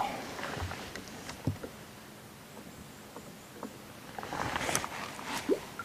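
Topwater plug being twitched on the pond surface in the 'chap-chap' style: a small splash at the start, a pause with the lure at rest, then a run of short, light surface splashes near the end.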